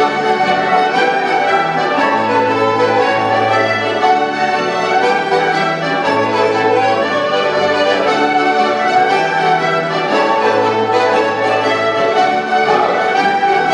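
A large amateur folk ensemble of fiddles, accordions and guitars playing a jig together, with long held low notes underneath.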